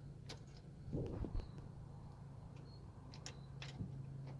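Faint, scattered metallic clicks as vice grips (locking pliers) turn an oil pressure sensor loose from the engine block, over a low steady hum.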